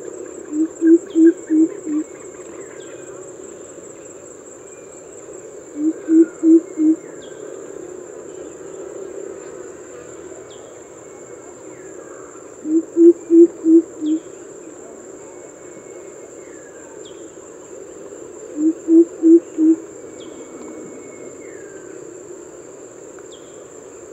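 Greater coucal giving its deep 'coop-coop-coop' hooting call: series of four or five low, evenly spaced hoots, repeated four times about every six seconds. A steady high insect drone runs underneath.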